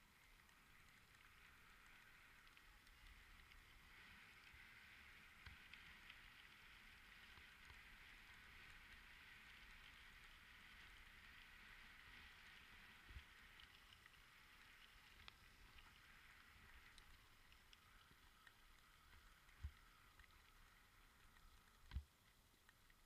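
Faint, steady hiss of a bicycle rolling downhill on a trail, swelling through the middle, with a few dull knocks from bumps in the second half.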